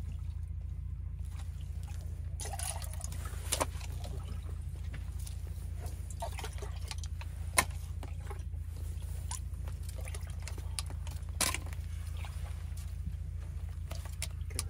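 Water dripping and trickling at an ice-fishing hole, with a few scattered sharp clicks over a steady low rumble.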